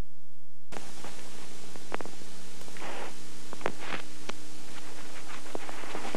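Steady electrical hum and hiss that cut in suddenly, with scattered sharp clicks and short rustles of a small clip-on microphone being handled close up as it is fitted to a shirt.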